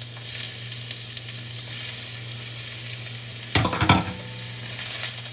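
Chayote and vegetables frying in hot oil in a nonstick wok, sizzling steadily as shell-on prawns are dropped in. A short burst of clatter comes a little past halfway and is the loudest part.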